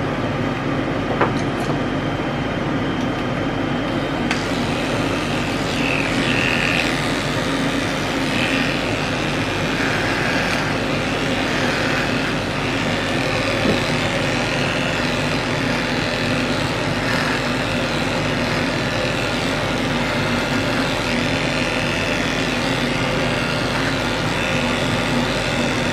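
Electric dog-grooming clippers running steadily while shaving a dog's coat short.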